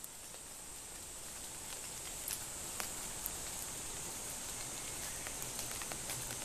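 Outdoor valley ambience: a steady high-pitched hiss with scattered light ticks, swelling slightly over the first couple of seconds.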